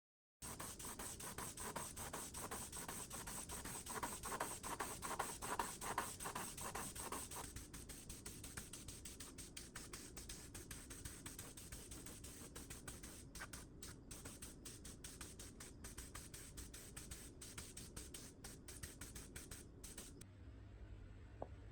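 Fast, steady back-and-forth scraping strokes of hand abrasive work on a metal fan part, heavier for the first several seconds, then stopping about twenty seconds in.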